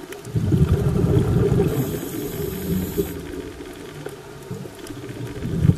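Air bubbles rumbling and gurgling past an underwater camera: a burst about half a second in that lasts a few seconds, then another building near the end, typical of a diver's exhaled breath.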